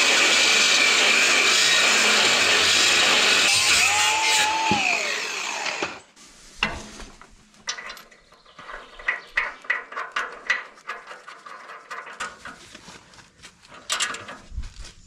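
Cordless angle grinder cutting through a seized stabiliser retaining pin on a tractor lift-arm bracket, running for about six seconds and then stopping. Light metallic clicks and taps follow as the pin is worked at.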